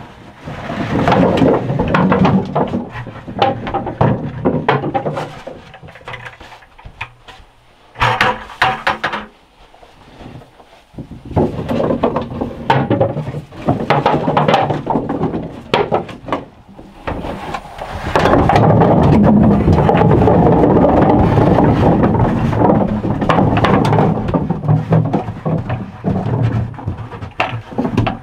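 Potatoes tumbling out of a plastic bucket onto slatted wooden shelves, a dense clatter of knocks. It comes in several pours with quieter handling between them, and the longest, loudest pour is about two-thirds of the way through.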